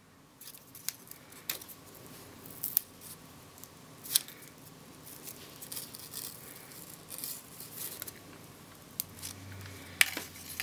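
Faint, scattered clicks and rustles of a paper backing strip of mini glue dots being handled and pulled from its roll on a cutting mat, with a little cluster of handling sounds near the end.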